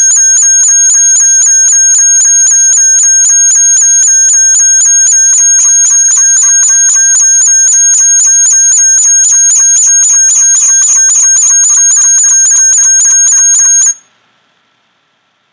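Loud electronic audio feedback from a nested recording and play-through loop: a pulsing, ringing tone, one high whistle over a lower tone, repeating several times a second. It cuts off suddenly near the end.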